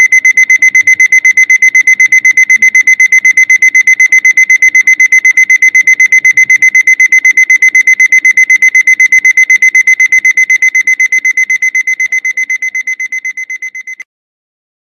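Electronic alarm clock beeping, one high-pitched tone pulsed rapidly at several beeps a second. It fades over the last few seconds and then cuts off abruptly.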